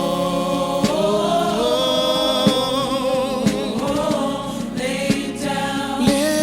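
Gospel choir singing long held notes with vibrato, with a few sharp percussion hits.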